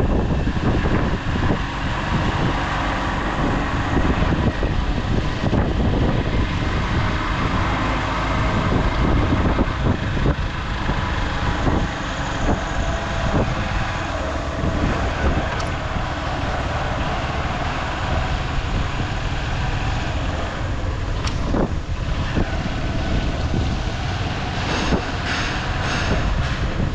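Motorcycle riding along a street: the engine runs under way, mixed with steady, heavy wind noise buffeting the microphone.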